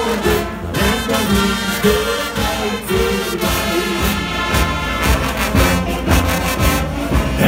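Carnival brass band playing live: trumpets, saxophones, trombones and a sousaphone over drums, in a lively, steady beat.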